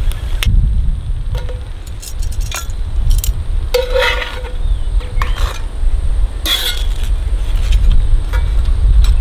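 Metal tongs and a spatula clinking and scraping against a cast iron skillet as slices of bread are laid in and turned, in a scatter of short knocks and scrapes. A steady low rumble of wind buffets the microphone throughout and is the loudest thing heard.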